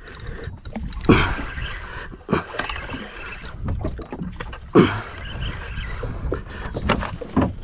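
Small fishing boat at sea: water slapping and wind noise against the microphone, broken by a few sharp knocks, the loudest about a second in and near the middle.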